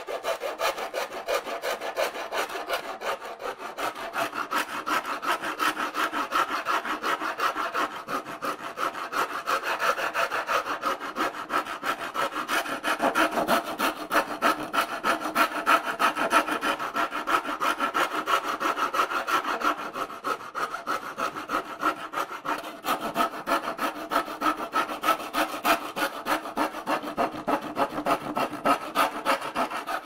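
A coarse rasp worked in steady back-and-forth strokes, about three a second, a continuous rough scraping.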